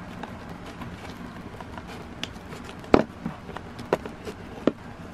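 Utility knife trimming a silicone ring against a cardboard box: a handful of short sharp clicks and taps, the loudest about three seconds in, over a faint steady hiss.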